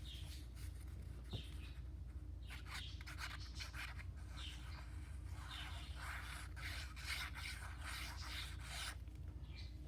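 Paper being handled and rubbed by hand: soft, irregular rustling and rubbing strokes as a paper piece is worked into place, over a faint steady hum.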